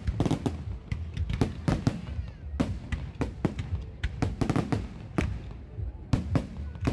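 Aerial fireworks bursting in quick, irregular succession: many sharp bangs, about three or four a second with a brief lull a couple of seconds in, over a steady low rumble.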